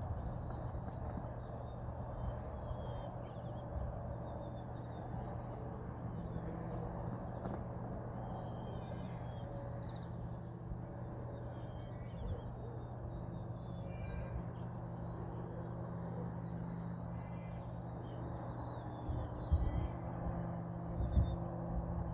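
Small birds chirping and twittering over a steady low hum and outdoor rumble, with a few low bumps near the end.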